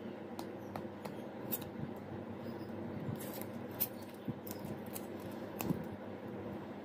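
Scattered small clicks and crackles of hands handling a freshly wound coil of enamelled copper wire and tearing the masking tape and paper off it, over a steady low hum.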